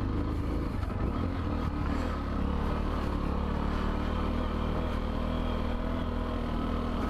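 Macbor Montana XR1 125cc single-cylinder four-stroke engine running at steady, moderate revs as the trail bike rides along.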